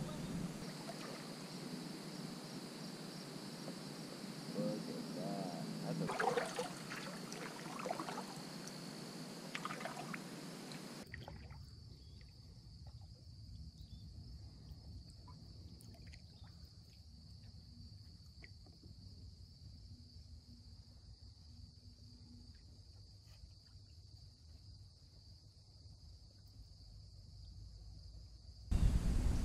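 Water trickling and dripping around a kayak on calm water, over a steady high-pitched insect drone. The water sounds are clearest in the first third; about eleven seconds in everything drops abruptly to a quieter backdrop of the same high drone.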